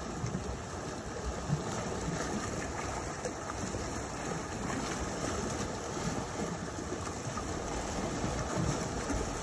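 Steady rush of sea water washing against shoreline rocks, mixed with wind buffeting the microphone.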